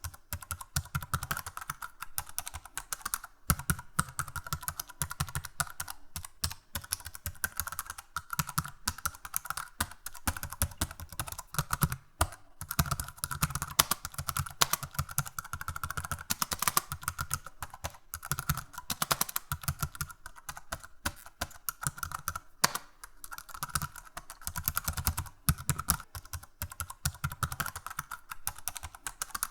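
Computer keyboard being typed on continuously: a fast, uneven stream of key clicks with short pauses between runs.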